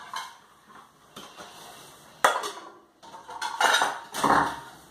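Metal pots and pans handled at a kitchen sink: a sharp clank about two seconds in, then a second or so of clattering and scraping near the end.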